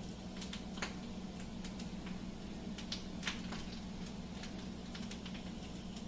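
Quiet kitchen room tone: a steady low hum with scattered faint, irregular ticks and clicks.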